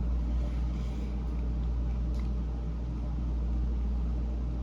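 A steady low hum of background machine noise, like a fan or appliance running, with a couple of faint soft clicks.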